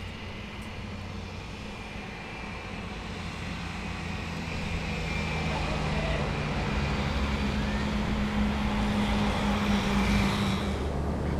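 A motor vehicle's engine running with a steady low hum that grows louder partway through, as if coming closer.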